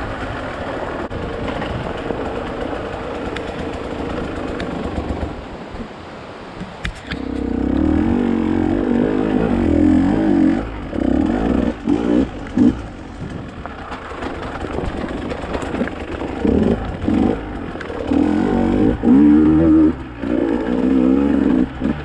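Dirt bike engine running under way on a trail, steady at first, dropping back briefly about six seconds in, then revving up and down repeatedly as the throttle opens and closes.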